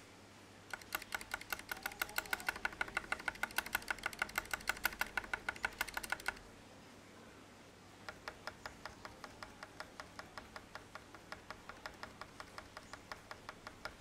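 A stabilized key on a budget custom mechanical keyboard pressed rapidly over and over, clacking, as a comparison of its stabilizer unlubed and with the wire ends lubed with Super Lube. A louder run of presses lasts about five and a half seconds, then after a short pause comes a second, quieter run.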